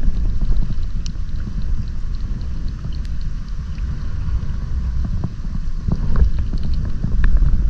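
Wind buffeting the microphone as a steady low rumble, with a few light clicks and knocks.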